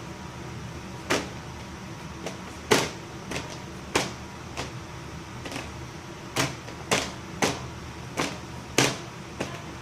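A series of sharp knocks or bangs from something being struck, about a dozen at an irregular pace, the loudest about three seconds in. A steady low hum runs underneath.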